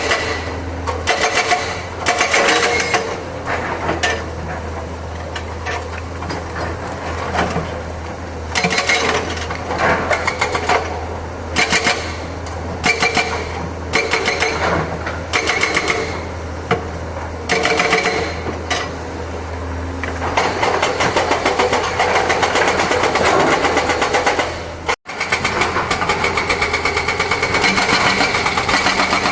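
Excavator's diesel engine running steadily, with loud short bursts of clanking and grinding about every second as the machine works. About twenty seconds in, the bursts give way to a denser, continuous rushing noise, which breaks off for an instant near the end.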